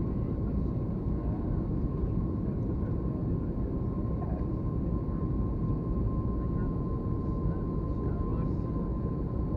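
Steady cabin noise inside an Airbus A321 in flight: the even rumble and rush of engines and airflow, with a thin steady whine held above it.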